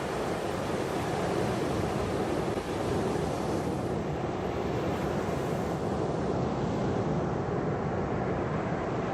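Steady rushing water: a continuous, even wash without separate wave breaks, thinning a little in its hiss about four seconds in.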